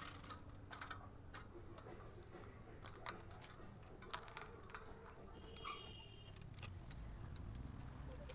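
Faint, irregular metallic clicks and light rattles of a bicycle chain being handled and threaded onto the sprockets and the new rear derailleur.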